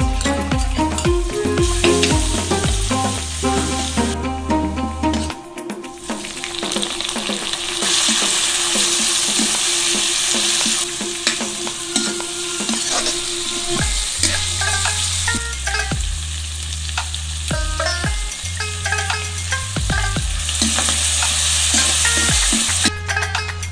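Garlic and prawns frying in oil in a wok, sizzling in waves that are loudest about a third of the way in and near the end, with a metal ladle stirring and scraping against the pan. Background music plays underneath.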